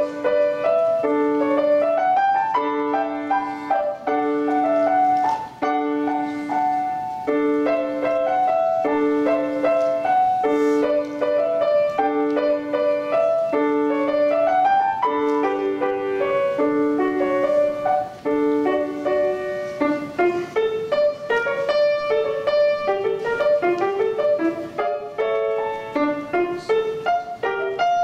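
Grand piano playing a gavotte: a melody over a low note repeated at an even pulse, giving way about two-thirds of the way through to busier running passages that rise and fall.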